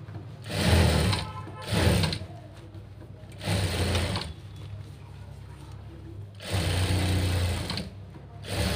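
Electric sewing machine stitching through fabric in short runs, starting and stopping five times, each run a steady mechanical hum lasting about a second.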